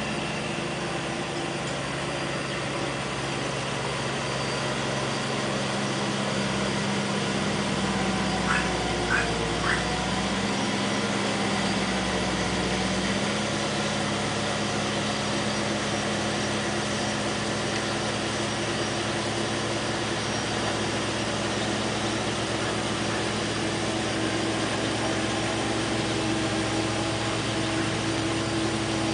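Tractor engine running steadily as it tills a flooded rice paddy, its pitch dipping briefly about ten seconds in and then settling. Three short high squeaks come in quick succession about nine seconds in.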